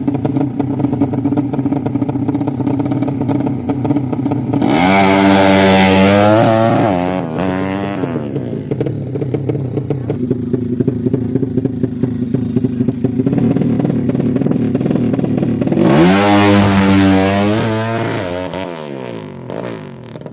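Drag-tuned four-stroke underbone motorcycle engine bored out to 200cc, running steadily and revved hard twice, each time rising quickly, holding high for a second or two, then falling back. The sound fades near the end.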